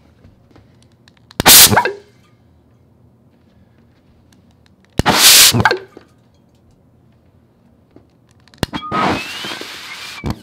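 Isopropyl alcohol vapour igniting inside a glass jam jar with a hole in its lid: three loud whooshing bursts, the first about a second in, the second about five seconds in, and a longer one near the end. A sharp click comes just before the last burst, which lasts about a second and a half and carries a faint rising whistle.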